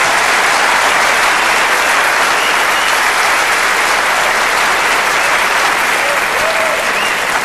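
Theatre audience applauding, steady and loud.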